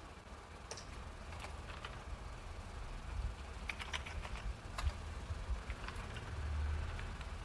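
Typing on a computer keyboard: irregular key clicks in short runs over a low hum.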